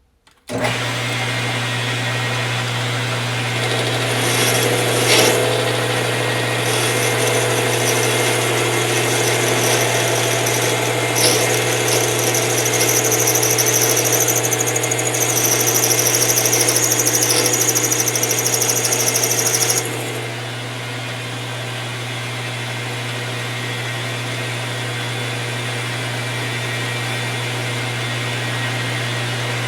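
King Industrial 10x22 metal lathe switched on and running with a steady hum. From about four seconds in, a higher cutting noise of the tool working the metal workpiece rides on top. It stops about twenty seconds in while the lathe keeps running.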